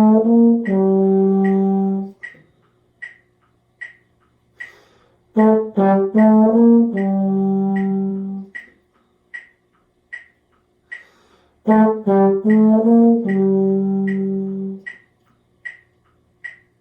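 A wind instrument plays the same short measure three times, four quick notes and then a long held note that gets softer toward its end, as a decrescendo practice. A metronome clicks steadily under and between the phrases, about one click every 0.8 s.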